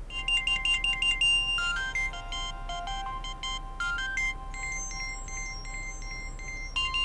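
Phone ringtone: a short electronic melody of quick repeated notes, starting abruptly and beginning over again near the end.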